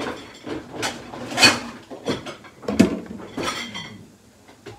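Pots, pans and cooking utensils clattering as they are handled, a string of knocks and clanks, the loudest about one and a half and three seconds in.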